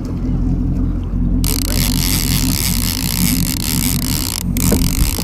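Charter boat's engine running steadily, with a loud hiss over it that starts abruptly about a second and a half in and breaks off briefly near the end.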